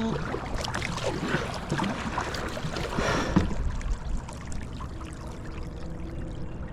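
Lake water splashing and trickling against a kayak, busiest over the first half with many small splashes, then settling to a quieter steady wash.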